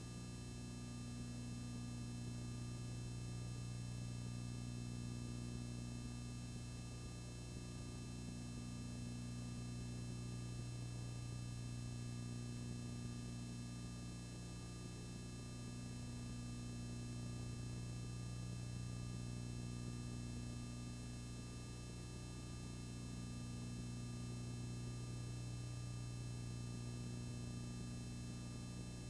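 Steady low electrical hum with faint hiss, unchanging throughout; no sound from the scene itself.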